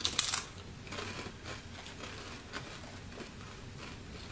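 A crisp potato chip bitten with a sharp crunch at the very start, followed by a few faint crunches as it is chewed.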